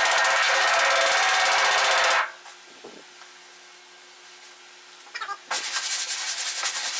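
Rapid, fast-repeating metallic tapping of a body hammer on the Triumph Spitfire's steel front valance with a dolly held behind it, raising a low spot. The tapping stops about two seconds in, leaving a faint steady hum, and starts again near the end.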